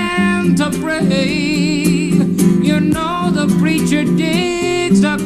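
A man singing long held notes with wide vibrato over an acoustic guitar, with a short break in the voice about two seconds in.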